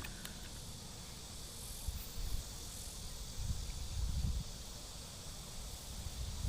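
Outdoor ambience of a steady high insect hiss, with low rumbling thumps now and then, strongest about two seconds and about four seconds in.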